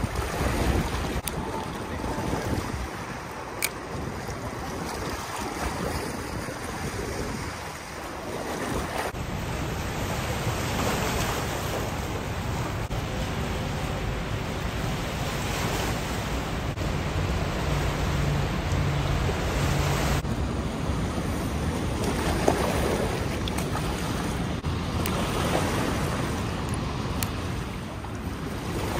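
Fast river water rushing and splashing against a rocky shore, with wind buffeting the microphone. For a stretch in the middle, the steady rush of water pouring through a dam's spillway gates.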